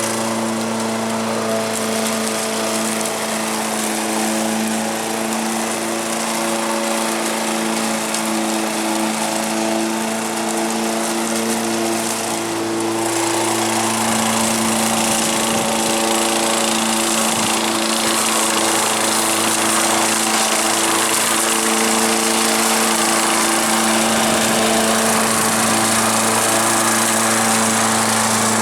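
Engine of a 1987 Honda lawn mower running steadily while mowing, holding an even pitch. It gets slightly louder a little before halfway through.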